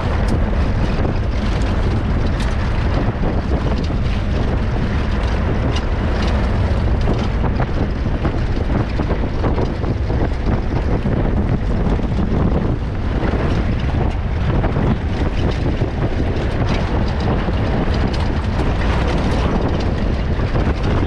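Safari vehicle driving on a track: a steady low engine and road rumble with scattered knocks, and wind buffeting the camera microphone.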